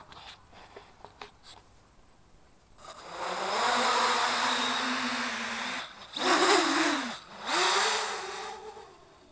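Fixed-pitch 3D quadcopter's Redcon 2217 2200 KV brushless motors with 8045 propellers, on a 4S LiPo, spinning up to a loud buzzing whine about three seconds in and holding it for about three seconds. The motors then cut out and come back in two more surges with wavering pitch, stopping shortly before the end. A few light clicks come before the motors start.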